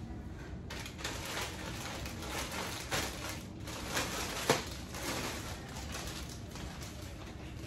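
Rustling and handling noises as clothes are taken off, put on or handled, with a few soft knocks and one sharp click about four and a half seconds in.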